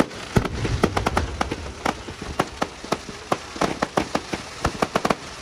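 Fireworks crackling: a dense, irregular spatter of sharp pops, like rain, with a few louder cracks among them.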